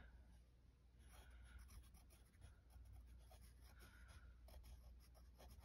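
Faint scratching of a graphite pencil writing on a lined paper notepad in short strokes, starting about a second in.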